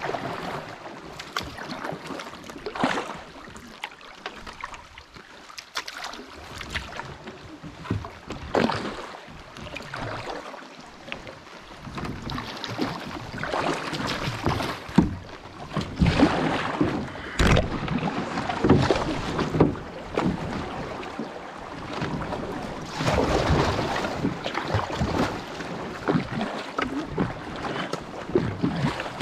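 Canoe paddling on a river: paddle strokes swishing and splashing in the water every second or two, with water moving past the hull. One sharp knock comes a bit past halfway.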